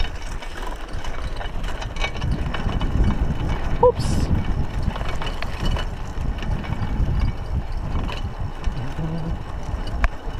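Raleigh Ascent mountain bike riding over a rough dirt track: a steady rumble of tyres on loose dirt with the bike's chain and frame clicking and rattling over the bumps. A brief squeak about four seconds in.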